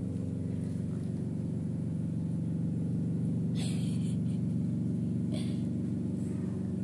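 Steady low mechanical hum of several even tones, like a running motor, with brief soft hissing noises about three and a half and five seconds in.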